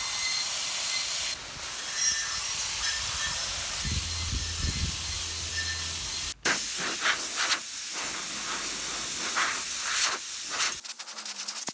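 High-pressure water spray hissing steadily as it blasts paint off metal transformer end covers. Near the end the steady hiss gives way to a quick run of short hisses.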